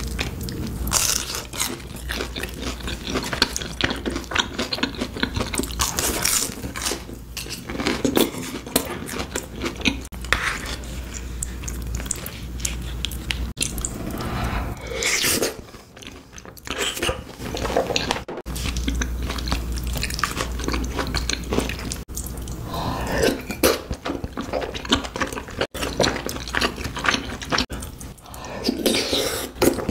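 Close-miked chewing and biting, with crunching from fried, breaded snacks and softer wet chewing of corn cheese and tteokbokki rice cakes.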